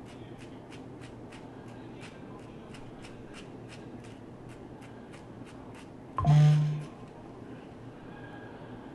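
Tweezers plucking hair from a wig's lace hairline: a run of light clicks, about two or three a second. A short low hum a little over six seconds in is the loudest sound.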